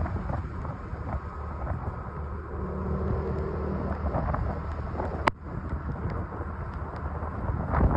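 Motorcycle engine running steadily under way, with wind buffeting the microphone. A single sharp click comes a little past halfway.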